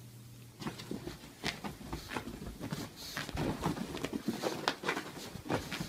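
Close-up scuffling of a small pet moving about on soft bedding: irregular soft rustles and light clicks and taps, the firmest ones about a second and a half in and again near the end.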